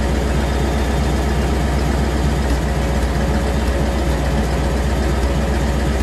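Supercharged 312 cubic inch V8 of a 1957 Ford Thunderbird F-code idling steadily, heard at the exhaust outlets in the rear bumper.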